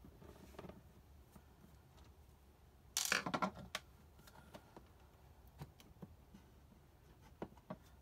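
Hands handling a small plastic wall fitting and its cable: a short scraping rustle about three seconds in, then a few light clicks.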